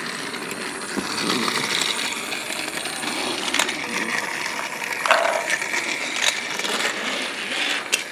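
Hard plastic toy-train-set pieces clicking and clattering as the small plastic treasure chest is handled and set onto the toy loader. There are a few separate sharp clicks over a steady background hiss.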